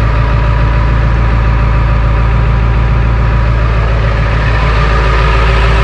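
1999 Ford F-250's 7.3 Power Stroke turbo-diesel V8 idling loudly and steadily after a cold start, the truck having sat about three weeks.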